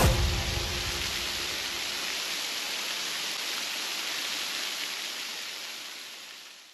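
Rushing water of a waterfall: a steady, even hiss that fades out gradually near the end.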